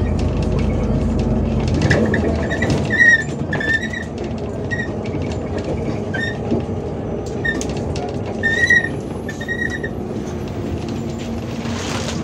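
Interior of a moving MAZ 105 articulated city bus: a steady rumble of engine and road, heaviest for the first two seconds and then easing, with short high squeaks and light rattles from the bus body and fittings repeating through it.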